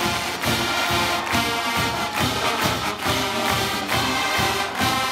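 Background music with a steady beat, a little over two strokes a second.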